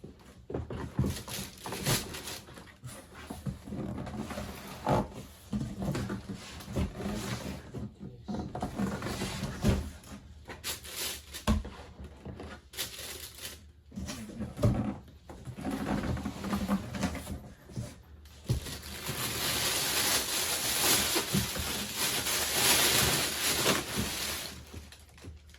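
Printer packaging being handled during unboxing: scattered knocks and short rustles, then several seconds of loud continuous rustling about three-quarters of the way in.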